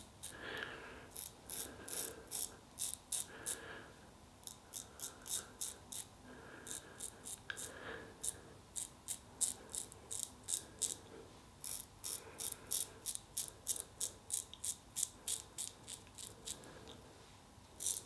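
Merkur Futur double-edge safety razor with a new Lord Platinum blade scraping through lathered stubble in short strokes. The strokes come as crisp rasps, two or three a second, in runs with brief pauses between them.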